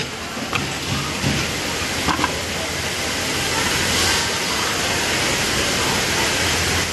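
Steady rushing hiss with a few light clicks in the first two seconds.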